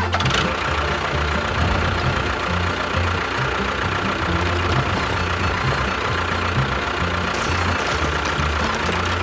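A small motor running steadily with a constant whine, starting at once and holding level throughout, over background music.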